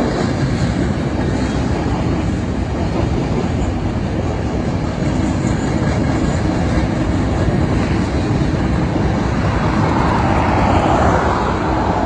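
Freight train flatcars rolling past on the rails, a steady rumble of wheels on track that grows a little louder and brighter near the end.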